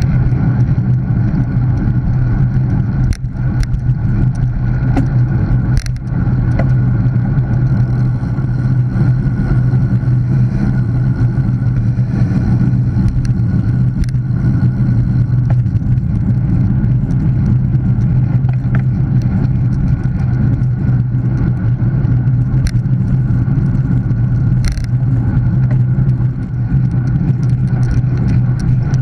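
Wind noise on a bike-mounted action camera's microphone together with road-bike tyre and road noise while riding at speed: a loud, steady rush with a low drone underneath. A few sharp clicks break through, near 3 s, 6 s, 14 s and 25 s.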